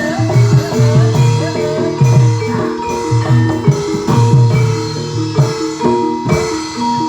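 Javanese gamelan music of the kind that accompanies barongan: metal-keyed instruments play quick runs of short ringing notes over the low strokes of a hand drum, each stroke dropping in pitch, in a busy, continuous rhythm.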